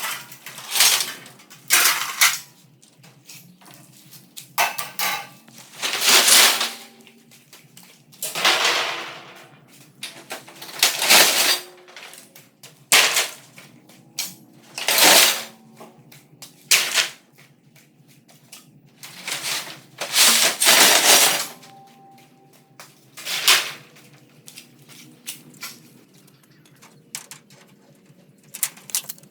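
Irregular banging and clattering of scrap wood and metal sheeting being handled and knocked about. The noises come at uneven intervals, some sharp single knocks and some longer rattling crashes of about a second.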